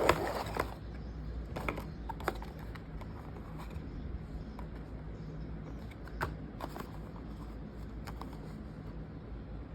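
Hands handling a small blind-box package: a short burst of rustling at the start, then scattered light clicks and taps, over a low steady hum.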